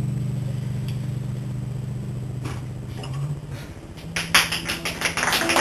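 Acoustic guitar chord ringing out and slowly fading, then fast, percussive strumming starting about four seconds in.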